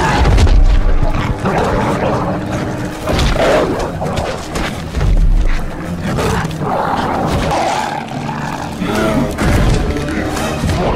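Action film soundtrack: a music score mixed with heavy booming impacts and animal roars and snarls as the Hulk fights the mutant dogs. The biggest low booms land right at the start, about five seconds in and again near the end.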